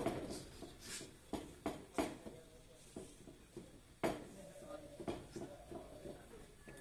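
Pipe wrench clicking and knocking against threaded steel pipe and fittings while a joint is being tightened: several sharp, irregular metal knocks, the loudest about four seconds in, some with a brief ring.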